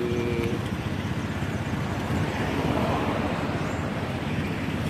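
Roadside traffic noise: motorbike and car engines running past, a steady low rumble.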